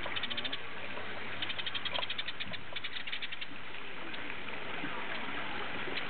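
House sparrows chirping: quick runs of short, repeated high notes in several bouts, over a steady background.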